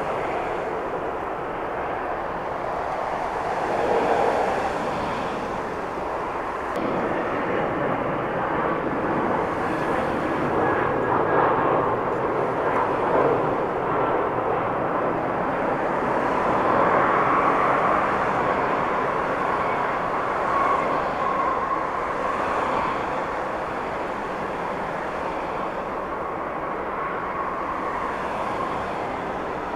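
Passenger jet engines running steadily, with a thin whine over the noise; the sound swells twice.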